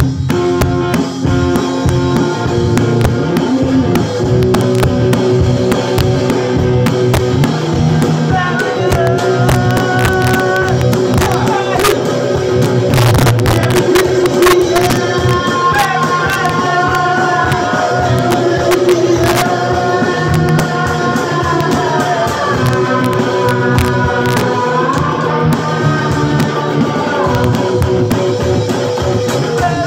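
Rock music played on an electric guitar with a steady beat, a melody line coming in about eight seconds in.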